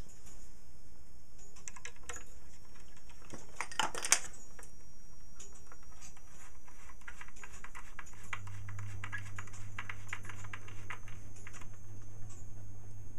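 Small screws being driven by hand with a small screwdriver into a plastic-laminate plate: rapid light clicking and scraping, with a couple of sharper knocks about four seconds in. A low steady hum starts about eight seconds in.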